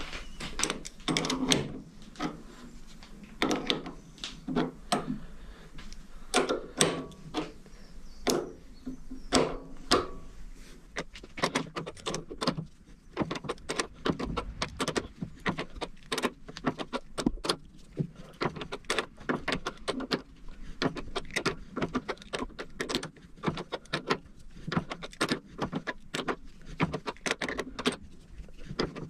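Quick, irregular metallic clicks and knocks from hand work with a tailstock die holder and spanner on a metal lathe, sped up fourfold, over a low steady hum.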